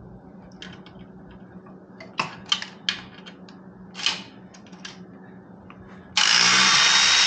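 A few light clicks and taps, then a cordless electric ratchet runs steadily at speed, starting near the end, loosening the 10 mm nut on a motorcycle muffler clamp. The motor run is the loudest sound.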